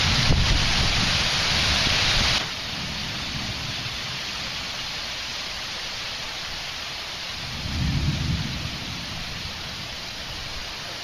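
Thunderstorm: heavy rain hissing with wind and low rumble, dropping suddenly to quieter steady rain about two and a half seconds in. A low roll of thunder swells and fades about eight seconds in.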